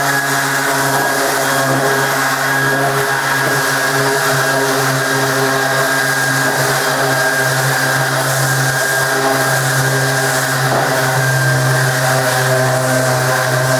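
Electric orbital sander running steadily as it is worked back and forth across a hardwood board, a constant motor whine with slight wavering as the pressure changes.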